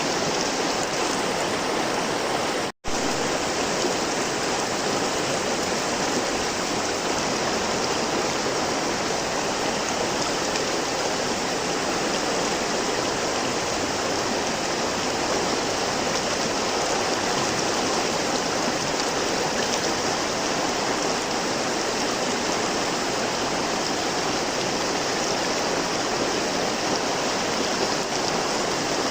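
River water flowing in a steady rush, with one split-second dropout to silence about three seconds in.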